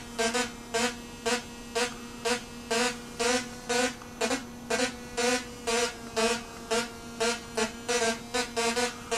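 Modular synthesizer patch with a sawtooth phase shifter module: buzzy, bright oscillator notes repeating in an even rhythm about twice a second over a steady low drone.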